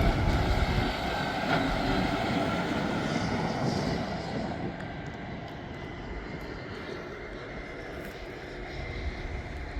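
Diesel engine of an earthmover driving past at speed, a heavy rumbling run that is loudest at first and slowly fades as the machine moves away.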